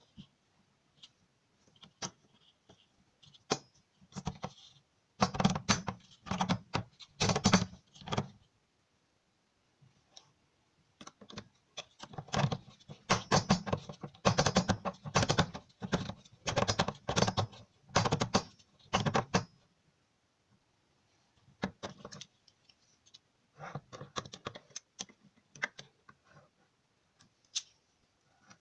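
Hand-held manual can opener turned around the rim of a tin can: rapid metallic clicking and crunching as its cutting wheel bites through the lid. The clicking comes in runs of turning with short pauses between them, and is fainter near the end.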